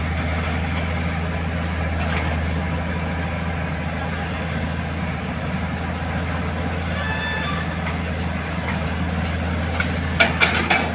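Kobelco SK200 hydraulic excavator's diesel engine running steadily at a low hum while digging, with a brief squeal about seven seconds in and a few sharp knocks near the end.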